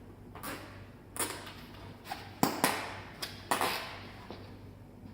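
Bicycle parts being handled while the front wheel is secured against the frame: a series of about six sharp knocks and clacks, some followed by brief scraping or rustling.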